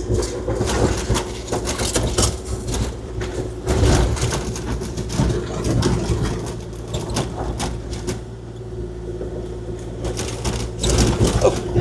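Kubota KX040-4 mini excavator's diesel engine running steadily with a constant hum, under irregular clattering and scraping of rock as the bucket smooths a load of gravel.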